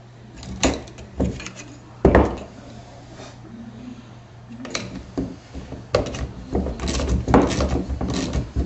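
Knocks and clinks of hand tools against wood and metal: a few separate knocks in the first couple of seconds, then a longer run of rattling metal clatter as a small wrench works the nuts on the bolts of an HHO dry cell's plate stack.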